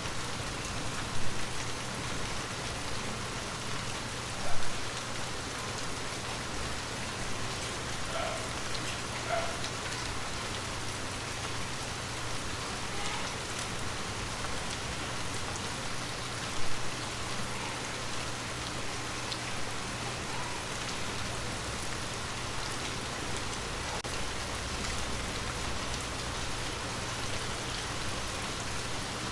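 Steady rain pattering on a window pane, an even hiss of drops with three louder single taps: about a second in, a few seconds later, and about halfway through.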